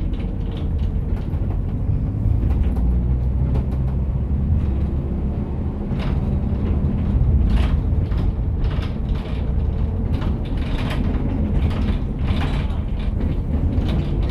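Bus interior while the bus is moving: a steady low engine and road rumble, with short rattles and creaks from the bus's fittings. The rattles come more often from about halfway through.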